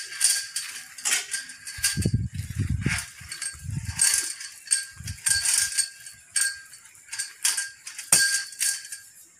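Steel parts of a well-drilling derrick being knocked and fitted together: irregular sharp metallic clinks and clangs, each ringing at the same few pitches, with a few dull thumps. They stop suddenly near the end. The rig's diesel engine is not running.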